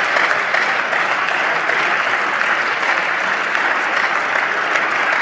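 Steady applause from the members of a parliamentary chamber, many hands clapping together.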